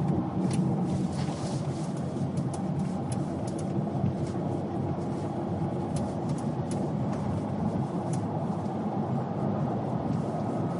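Steady engine and tyre noise of a car driving along a country road, heard from inside the cabin, with a few faint ticks and rattles.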